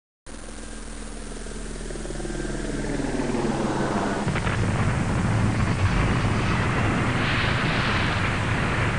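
Sound effect of a rushing, rumbling noise that starts abruptly and swells steadily louder, growing brighter in its last few seconds.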